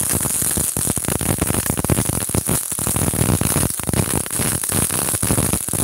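MIG welding arc from a MultiPro MIG-MMA/TIG 160 inverter welder: a loud, steady, dense crackle and sizzle of the wire arc as a bead is laid, with sparks spattering.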